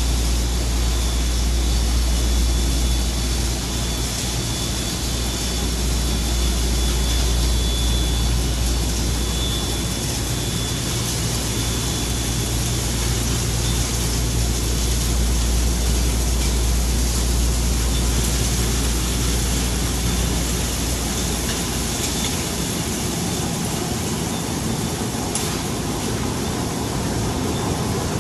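Straw erosion-control blanket machine running, a loud steady industrial whir with a deep low hum from its drives and air ducting. The low hum eases off after about twenty seconds.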